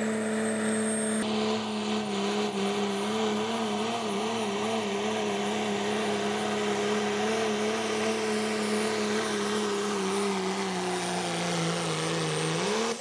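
Hot rod diesel four-wheel-drive pulling truck running flat out under load during a pull, its engine note wavering over a thin high turbo whine. Near the end the engine note sinks slowly as the truck drags down, then rises sharply just before it stops.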